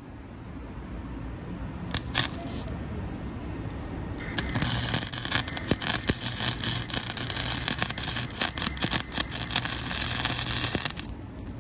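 MIG130 gasless flux-core semi-automatic welder arc: two short strikes about two seconds in, then a steady crackling, spitting arc from about four seconds in until it stops near the end, over a low hum.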